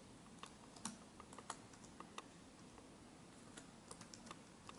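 Faint keystrokes on a computer keyboard: scattered, irregular clicks as a few words are typed.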